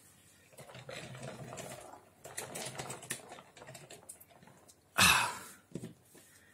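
The battery voice box in a Transformers Optimus Prime toy trailer plays a muffled electronic voice twice, then the toy is handled with a short loud burst of noise about five seconds in.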